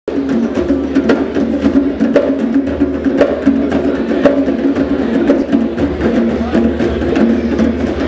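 Several djembe hand drums played together in a fast, steady rhythm, with a sharper accented slap about once a second.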